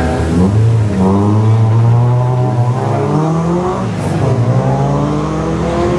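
Renault Clio race car's engine revving hard as it accelerates uphill; the pitch climbs, drops at a gear change about three seconds in, then climbs again.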